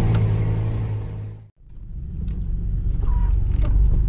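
Off-road 4x4's engine running steadily, heard from inside the cab. The sound fades out about a second and a half in, then comes back as a lower rumble with scattered knocks and rattles as the vehicle crawls over a rough dirt track.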